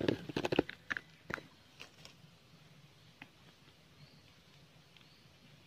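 Rustling and sharp clicks on dry leaves and dirt in the first second and a half, then a quiet stretch with a few faint clicks and faint short high chirps about every half second.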